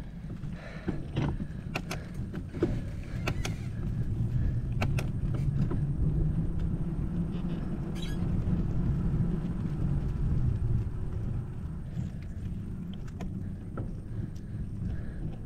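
Bicycle rolling along a concrete path: a steady low rumble of the ride, with scattered clicks and rattles from the bike, most of them in the first few seconds.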